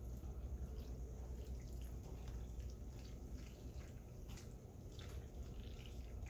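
Milk-and-cheese sauce simmering in a pan on the stove, with soft, irregular small pops over a low steady hum.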